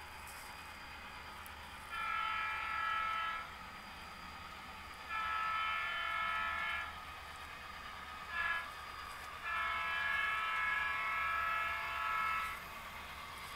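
Model diesel locomotive's horn blowing the grade-crossing signal: two long blasts, a short one, then a final long one, each a chord of several tones.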